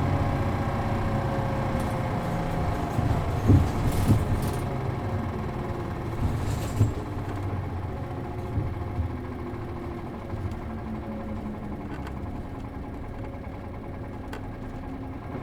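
City bus's MD92TJ diesel engine heard from inside the cabin, its low drone dying away as the bus eases off, with a few sharp knocks and rattles of the body a few seconds in.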